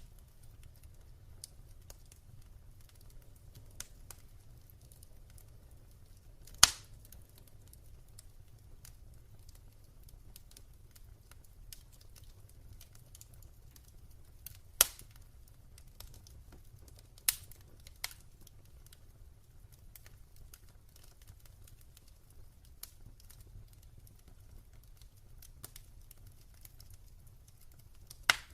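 Wood fire burning in a fireplace, crackling with scattered faint ticks and a handful of loud sharp pops, the biggest about a third of the way in and others near the middle and at the end.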